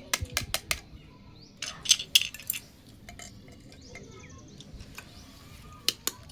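Small plastic toy kitchen pieces clicking and clinking as they are handled and set down. A quick run of clicks comes at the start, a louder cluster about two seconds in, and two more clicks near the end.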